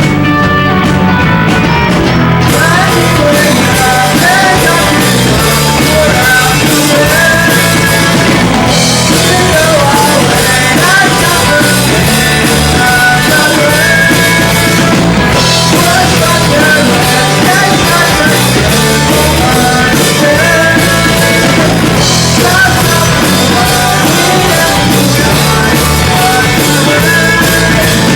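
Rock band playing loud and live: electric guitar, bass and drum kit, with a melodic lead line weaving over steady low notes. The drums and cymbals come in about two and a half seconds in.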